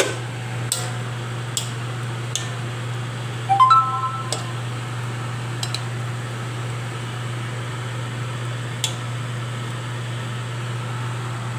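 A steady low machine hum, with a few light clicks scattered through and a brief pitched tone about three and a half seconds in.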